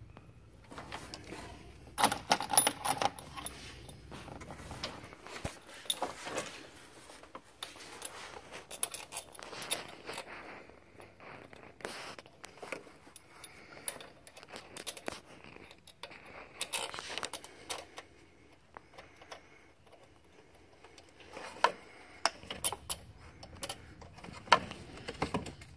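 Irregular metallic clinks, jingles and scrapes of bolts and hand tools being handled around a crankshaft pulley as a harmonic damper and its stretch bolts are fitted by hand. The loudest clatter comes about two seconds in, again around seventeen seconds, and in a few clinks near the end.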